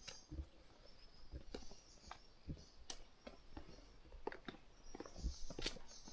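A hiker's footsteps on a trail, about one step a second, with small scuffs and clicks underfoot. A faint high insect buzz is there near the start and comes back near the end.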